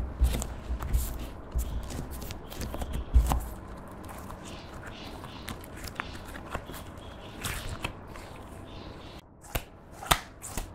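Clear slime with crumbled eyeshadow powder worked in by hand on a wooden board: sticky clicks and crackles as it is folded and pressed, with dull thumps in the first few seconds and a few sharp pops near the end as it is squeezed between the palms.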